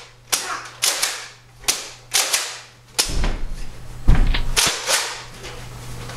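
Spring-powered Nerf blasters firing foam darts: a series of sharp snaps, about four in the first three seconds, then a busier run of clicks and knocks with one loud hit about four seconds in.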